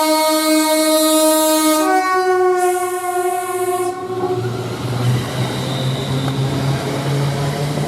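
Train sounding a two-tone horn: one long note, then a higher note about two seconds in, stopping about four seconds in. The train's running noise and a low steady hum carry on after the horn.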